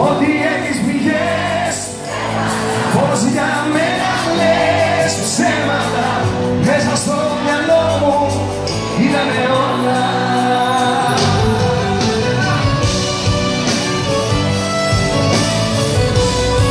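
Live Greek laïko music: a male singer singing into a microphone over a band with plucked-string instruments, heard from the audience in a large hall.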